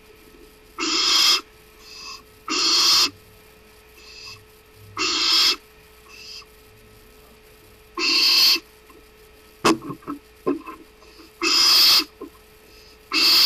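Barn owl giving harsh, hissing screeches, each about half a second long and repeated every two to three seconds, with fainter short calls in between. A few sharp knocks come about two-thirds of the way through.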